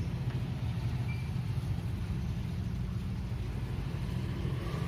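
Steady low mechanical hum of running machinery, an engine-like drone that holds level throughout.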